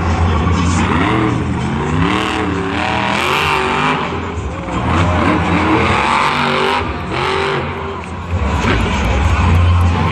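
Northern Nightmare monster truck's supercharged engine revving hard as it drives the dirt course, its pitch rising and falling with the throttle.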